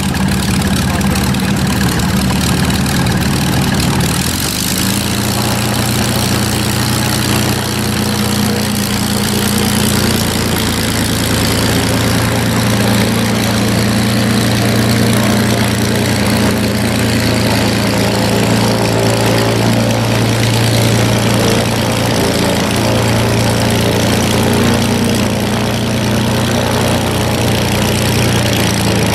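Velocity XL's piston engine running at low power, driving a new three-bladed carbon-fiber Aero Composites pusher propeller as the aircraft taxis. The engine note changes about five seconds in, then holds steady.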